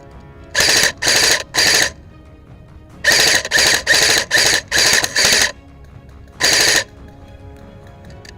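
Airsoft electric rifle fired in short full-auto bursts: three quick bursts, a string of six, then one more.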